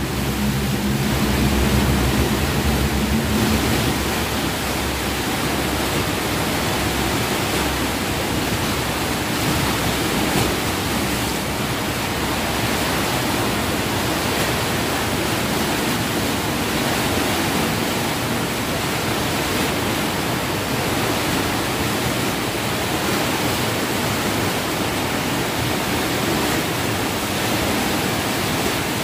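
Fresh water rushing and churning through the opened hydraulic sluice gate of a salinity-control dam: a steady, loud wash of turbulent water. A low steady hum sounds under it for the first few seconds, then fades.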